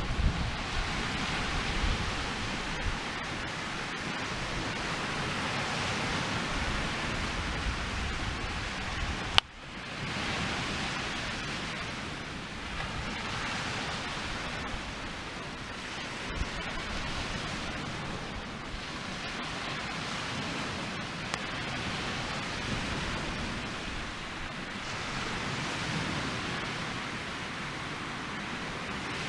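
Swedish-torch log fire burning with a steady rushing hiss and a few faint crackles, with one sharp click about nine seconds in.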